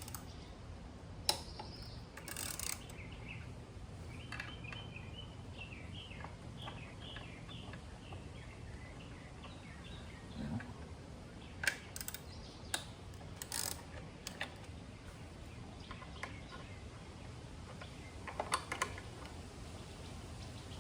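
Scattered clicks and clinks of hand tools working the T27 Torx bolts on a motorcycle air cleaner assembly, with a run of quick, light clicks from about four to eight seconds in.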